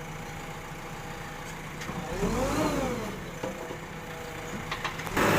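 Diesel engine of a JCB 3DX backhoe loader running steadily, revving up and back down about two seconds in, then suddenly much louder near the end.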